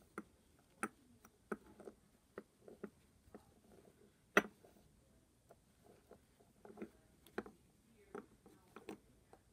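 Faint, irregular light clicks and taps from a plush toy riding a fidget spinner as it is turned by hand on a wooden floor, with one louder knock about halfway through.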